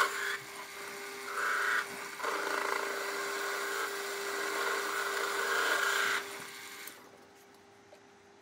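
Small metal lathe running while its tool cuts a thread run-out groove into a threaded stud, with a scraping cutting noise in several spells. The cutting stops about six seconds in, and the lathe goes quiet about a second later.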